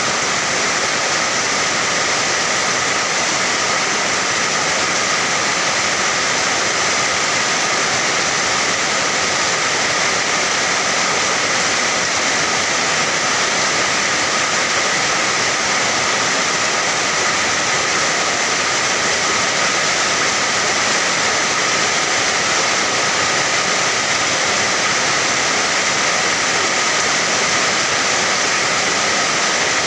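Steady heavy rainfall, an even continuous hiss with no changes or distinct drops.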